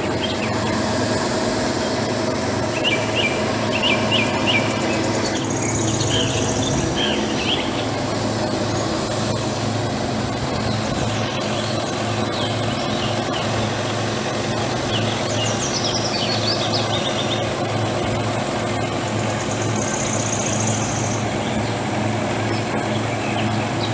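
Small engine running steadily at an even speed, with birds chirping now and then over it.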